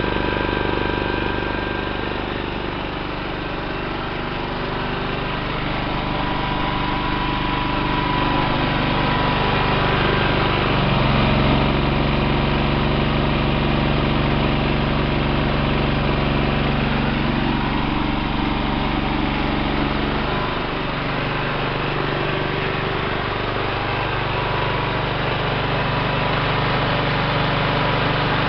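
Generac 5 kW standby generator running steadily under electrical load. Its note changes about 11 seconds in and changes back about 20 seconds in.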